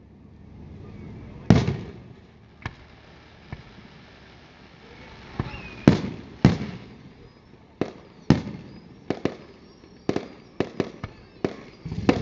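Aerial fireworks shells bursting: single sharp bangs a second or two apart, the bigger ones trailing off in an echo, quickening into a rapid run of reports near the end.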